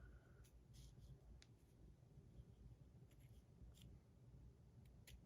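Near silence with a few faint, scattered small clicks and light rubbing: handling of the metal fidget coin and the measuring tool while taking its size.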